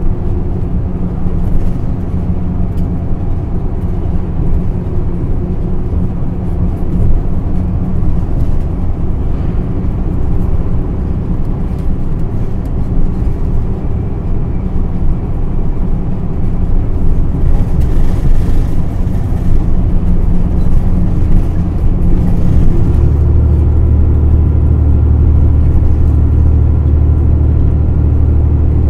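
Onboard running sound of an Isuzu Erga PDG-LV234L2 city bus under way: a steady diesel engine drone with the air conditioning running. About three-quarters of the way through, the engine note changes to a deeper, slightly louder steady hum.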